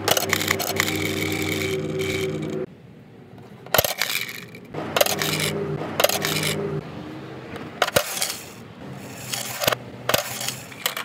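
Plastic toy garage doors snapping and clattering open as a finger presses them, a series of sharp clicks a second or two apart. A steady hum runs under the first few seconds and cuts off abruptly.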